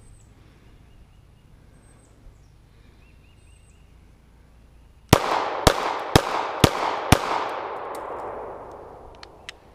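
Five rapid shots from a PSA Dagger Compact 9mm pistol, about half a second apart, starting about five seconds in, each followed by an echo that fades away over about two seconds. A few light clicks come near the end.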